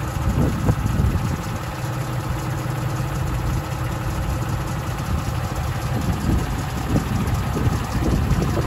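Freightliner M2 106 truck's engine idling steadily.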